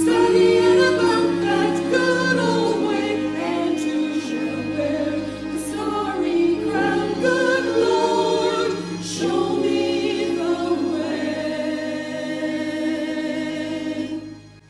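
Choir singing a slow sacred piece with long held notes, fading out near the end.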